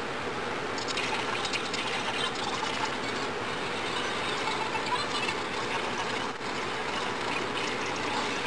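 Sped-up scratching and rustling of a pencil ruling lines along a wooden ruler on paper: a dense, steady run of tiny clicks and scrapes.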